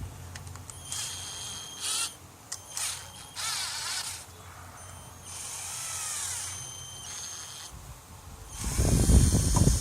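Small cordless drill's motor whirring in several short trigger bursts, its whine rising and falling in pitch, then running much louder near the end.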